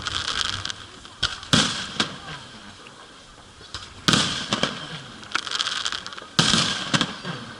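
Aerial fireworks bursting: three loud sharp bangs about two and a half seconds apart, with smaller pops between them and a short crackling trail after each bang.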